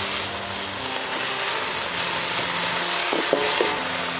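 Leaves and aromatics sizzling in hot oil in a metal wok, with a wooden spatula stirring and scraping against the pan.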